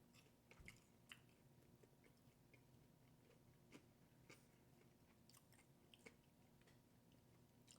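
Faint chewing of food, with soft irregular mouth clicks scattered throughout.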